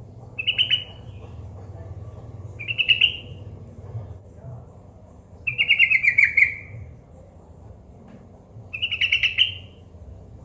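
Yellow-vented bulbul (trucukan) giving four short, bubbly chattering calls a couple of seconds apart, the third longer and falling in pitch, over a steady low background hum.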